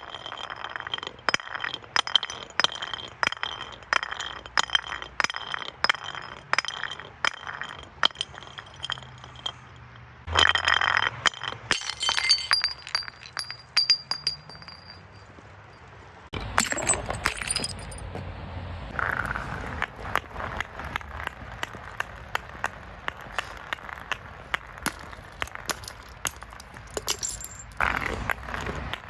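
Glass bottles being broken and crushed: a dense run of sharp clinks and crunching glass, with louder breaks about ten seconds in, about seventeen seconds in, and near the end.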